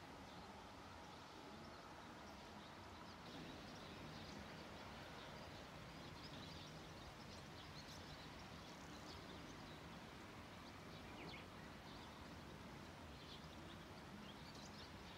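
Faint outdoor ambience: a steady rush of wind with scattered faint bird chirps.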